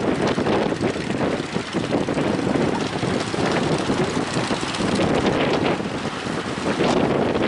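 Strong wind buffeting the microphone: a continuous, gusting rush.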